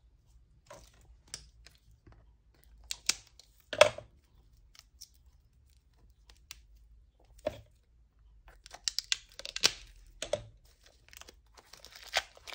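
Clear plastic wrap being picked at and peeled off a new Stampin' Pad ink pad: scattered crinkles and small taps of the plastic case, with a sharper crackle about four seconds in and a quick run of crinkles near the end.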